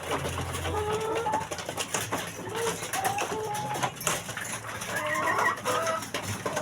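A flock of laying hens clucking and calling in short, overlapping pitched notes, among many sharp clicks.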